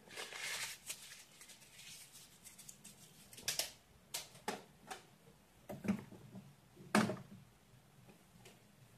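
A short rustle near the start, then a series of irregular sharp clicks and knocks of something being handled, the loudest about seven seconds in.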